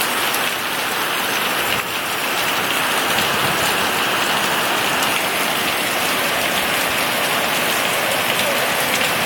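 Heavy rain driven by tropical-storm winds, a dense steady rush of noise.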